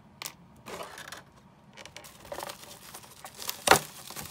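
Clear plastic blister packaging and its plastic wrap crinkling and crackling as they are picked up and handled, in irregular rustles with the loudest crackle near the end.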